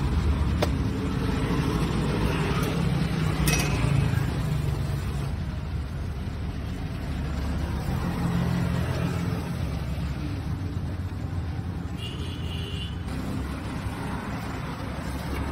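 Steady low rumble of street traffic and background bustle, with a couple of sharp clicks in the first few seconds.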